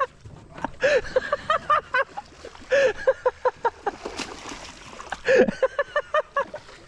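A man laughing excitedly in three runs of quick, short "ha" sounds.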